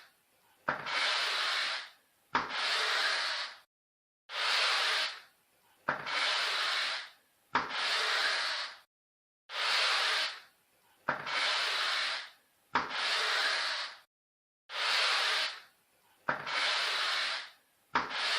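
Squeegee being drawn across a surface in repeated swipes, a dozen or so strokes each lasting a little over a second. Each stroke is a rough rubbing swish, and several open with a sharp click as the blade is set down.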